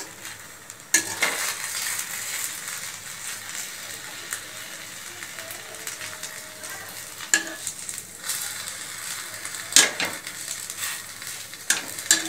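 A thin batter crepe sizzling steadily in ghee in a nonstick kadai while a metal spatula rolls it up. A few sharp clicks and scrapes of the spatula on the pan break through, the loudest about ten seconds in.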